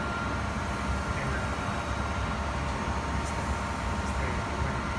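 Favretto grinder running steadily: an even mechanical hum and rumble with a thin, steady whine.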